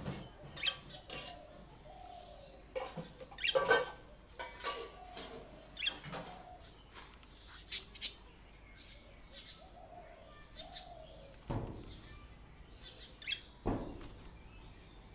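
A small pet bird flapping its wings and chirping now and then, among scattered short knocks and rustles.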